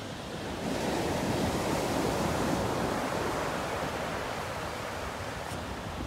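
Small waves breaking and washing up a sandy beach: the surf swells about a second in, then eases off over the next few seconds.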